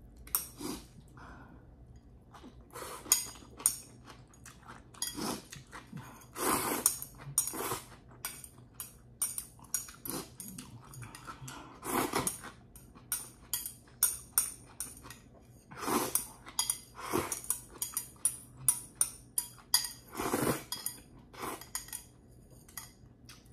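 Metal chopsticks clicking and scraping against a ceramic bowl as pasta is scooped from it to the mouth, with many short clinks and a few longer slurps.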